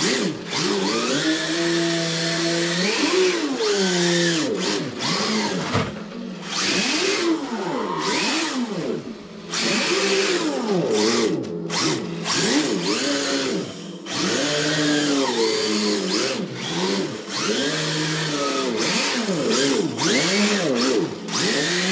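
An RC car's engine sound simulator playing a Nissan RB26 straight-six through a small onboard speaker. The note revs up and falls back again and again with the throttle, about once a second, with a few short held notes.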